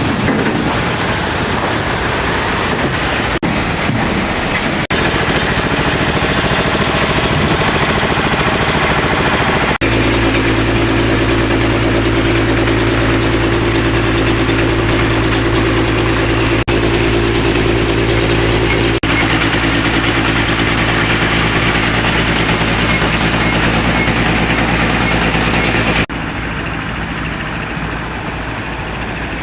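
Bauxite processing machinery running with a loud, continuous mechanical din. About a third of the way in it changes suddenly to a deeper, steadier hum, and near the end it drops abruptly to a quieter running noise.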